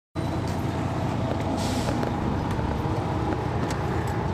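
Detroit Diesel Series 60 straight-six diesel of an MCI D4000 coach idling steadily, heard from inside the rear of the bus. A short hiss of released air sounds about a second and a half in.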